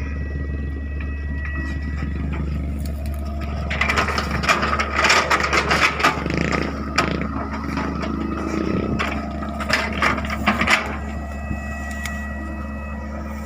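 Excavator engine running steadily while the bucket scrapes and crushes woody debris, with a run of cracking and splintering from about four seconds in until near the end.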